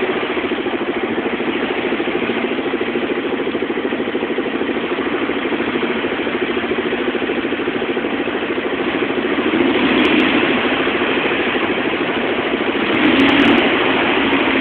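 Four-wheeler (ATV) engine running steadily at low throttle, with a fast even pulse, swelling louder twice: about two-thirds of the way through and again near the end.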